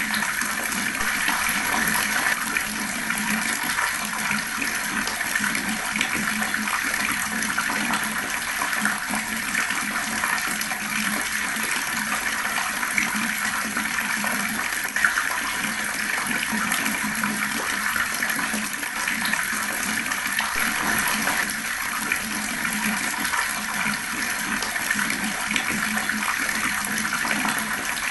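Fast-flowing water rushing and splashing steadily, without let-up.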